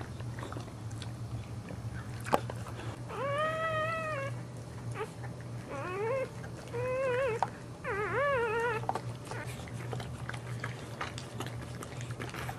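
Dog whining during whelping: one long arched whine about three seconds in, then three shorter wavering whines, the last ending about nine seconds in. A sharp click just after two seconds, over a steady low hum.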